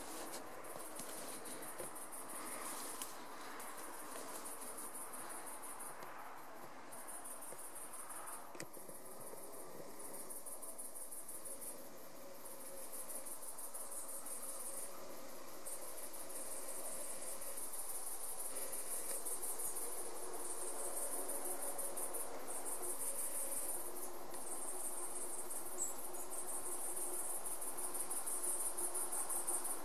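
Crickets chirping in a dense, high-pitched continuous chorus that drops out briefly several times.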